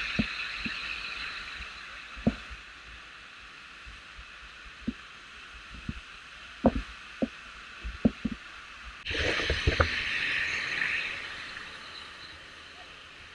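Steady rush of a waterfall's spray and falling water, with scattered short knocks and taps. The rush cuts in much louder about nine seconds in, then eases off.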